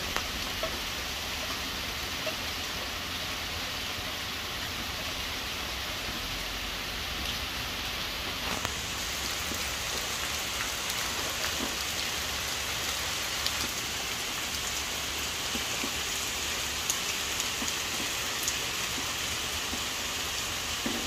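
Steady rain falling, with scattered louder individual drops.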